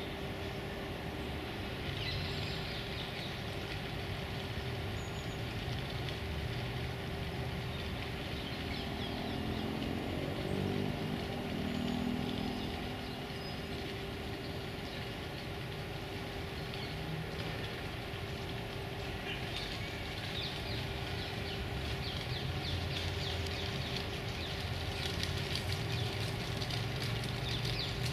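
Distant road traffic: a steady low rumble under a constant hum, with a passing engine note around the middle, and a light crackling rustle in the last third.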